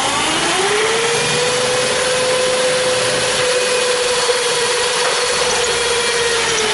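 Milwaukee Magnum 0299-20 half-inch corded drill's motor running. It speeds up in the first half-second, then holds a steady high whine, and the pitch sags slightly near the end.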